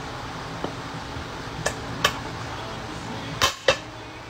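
Hammer striking an old rusty steel drive shaft: sharp metal-on-metal blows with a short ring, two in quick succession and then a louder pair about a second and a half later.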